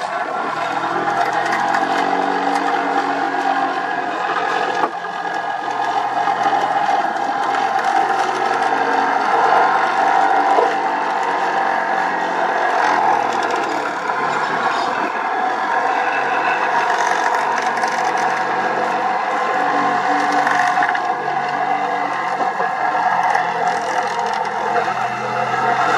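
Excavator-mounted vibratory pile hammer running on a steel sheet pile, a loud steady mechanical drone with rattling steel, over the excavator's engine.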